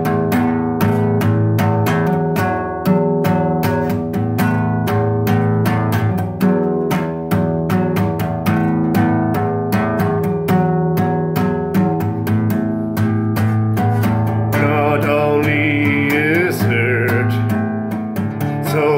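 Music: a steady run of quick plucked notes over held chords. About three-quarters of the way through, a wavering higher melody that bends in pitch comes in over it.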